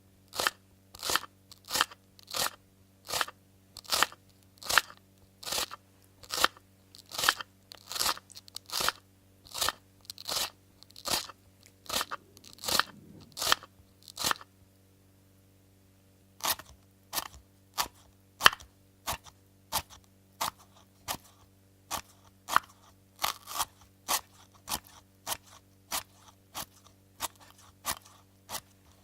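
Kitchen knife chopping vegetables on a wooden cutting board: crisp, even chops at about one and a half a second, pausing for about two seconds around the middle before picking up again.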